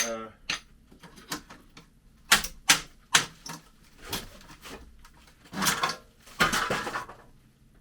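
Sheet-metal furnace flue pipe being worked loose: a series of sharp metallic knocks and clanks, then two longer scraping rasps.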